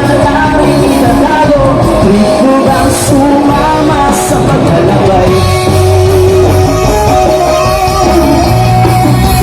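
Loud live rock band music with singing, guitars and drums.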